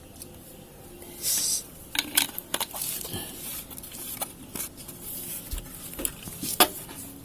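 Handling noises: a short hiss about a second in, then a series of irregular clicks and knocks.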